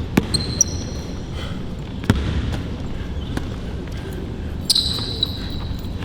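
A basketball bouncing on a court in a few irregular dribbles during play, with sneakers squeaking sharply on the floor, the loudest squeak about three-quarters of the way in.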